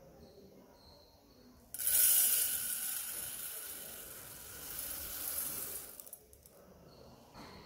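Dry rice grains poured from a glass cup into a stainless steel bowl: a rushing patter of grains striking the metal. It starts suddenly about two seconds in and tails off about six seconds in.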